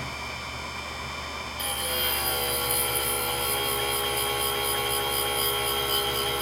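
FIRSTEC EDG-213N drill grinder running, its grinding wheel grinding the point of a 10 mm drill bit. About one and a half seconds in, the grinding gets louder, with a steady high ringing whine over the rasp that holds from then on.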